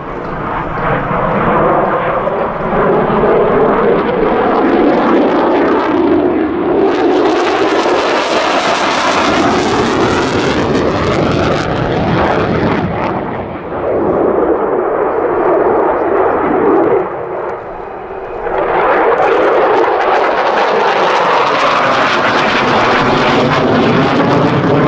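F-16 fighter jet's engine noise as it flies overhead, a loud continuous roar that sweeps in pitch as the jet moves. It turns brighter and hissier about seven seconds in, eases off with a brief dip about two-thirds of the way through, then swells loud again.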